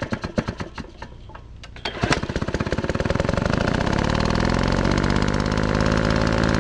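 Small engine running: a few irregular knocks, then it catches about two seconds in and settles into a fast, steady running beat.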